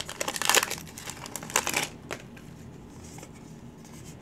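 Crinkling of an opened foil booster-pack wrapper as a stack of trading cards is slid out of it, a crackly rustle with small clicks lasting about two seconds.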